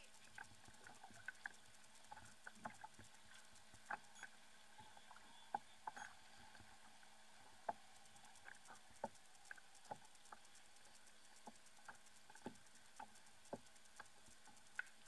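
Near silence, with faint, sharp clicks and taps scattered irregularly through it, about one or two a second.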